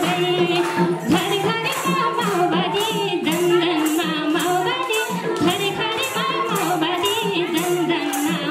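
A woman sings a Nepali Teej folk song through a microphone in a wavering, ornamented melody. It runs over steady hand-clapping at about two claps a second.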